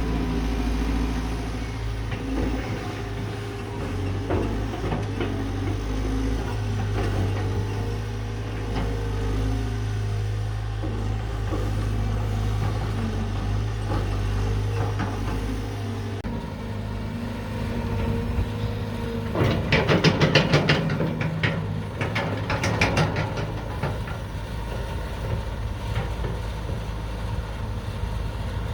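Caterpillar 320 GC excavator's diesel engine running steadily, with a burst of sharp metallic clanks and scraping about two-thirds of the way through.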